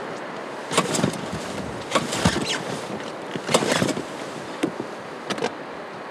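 The pull-start cord of a 25 hp outboard motor is yanked several times in short bursts, about a second apart, with the engine turning over but not catching.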